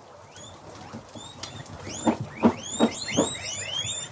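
Dozens of guinea pigs wheeking: many overlapping short, high whistling squeals that grow louder and more frequent about halfway through. This is the begging call guinea pigs give when they expect food.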